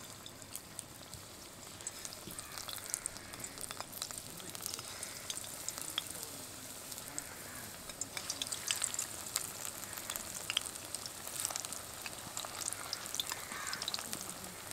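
Paste-coated rolled taro-leaf pieces deep-frying in medium-hot vegetable oil in a kadai. The oil gives a steady sizzle with many small crackles as the pieces go in.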